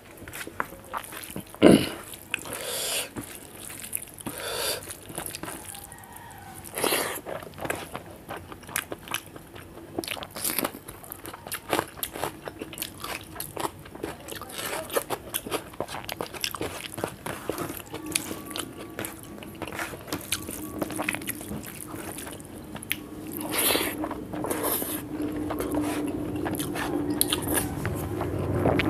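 Close-miked eating of rice with dal and fish curry by hand: irregular chewing and wet mouth smacks, with the squish of fingers mixing the rice on the tray.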